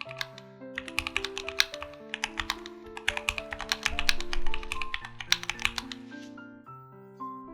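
Typing on a Keychron Q8 aluminium mechanical keyboard: rapid key clacks in quick runs that start about a second in and stop near the end, over background piano-like music.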